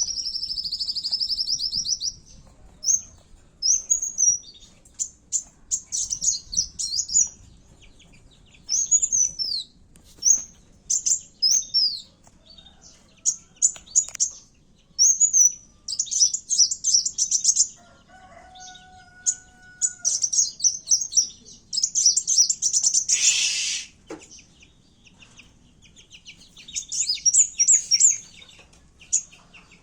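Kowul songbird singing a lure song: high-pitched chirps and rapid trills in short bursts with short gaps between them, the energetic song of a bird ready to fight.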